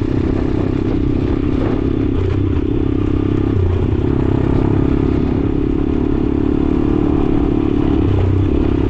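Motorcycle engine running steadily at moderate speed, its note dipping briefly a few times.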